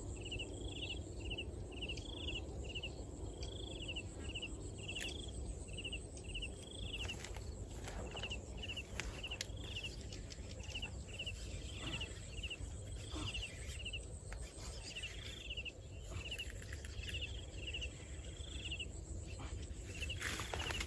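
An insect chirping steadily outdoors: short chirps of a few quick pulses each, about two a second, all at one high pitch. A steady low rumble lies underneath, with a few faint clicks.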